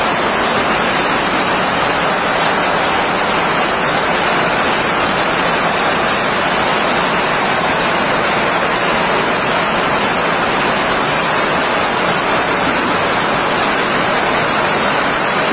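Heavy hailstorm with strong wind: a loud, steady roar of hailstones pelting down, without a break.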